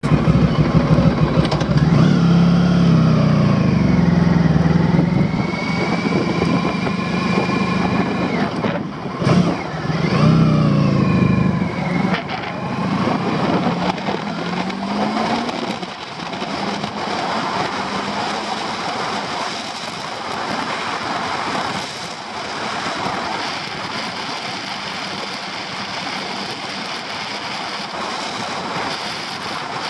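Honda Pan-European ST1100's V4 engine pulling away and accelerating, its pitch rising and dropping with the gear changes. From about halfway through, a steady rush of wind noise over the microphone at road speed largely covers the engine.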